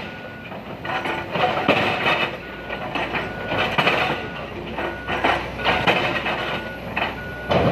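Excavator working among large boulders: repeated clattering and grinding bursts of rock and steel, with the machine's warning alarm beeping about once every second.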